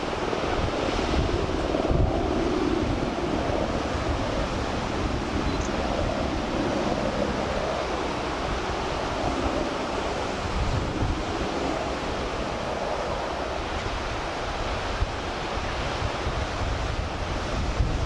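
Sea surf breaking in a steady rush, with wind buffeting the microphone in uneven low rumbles.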